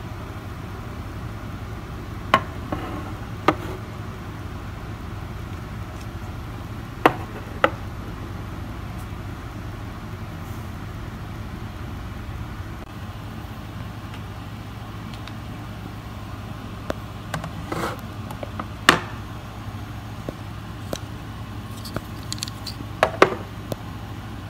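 Sharp clicks and clacks of all-steel pistols, a Makarov and then a Tokarev, and their loaded magazines being set down on and lifted off a Dymo digital scale, in a few scattered groups over a steady low hum.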